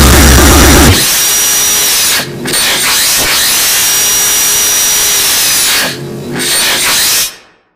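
A stream of distorted extratone kick drums cuts off about a second in. A power drill then whirs with a high whine, easing off twice briefly in the middle, and stops shortly before the end.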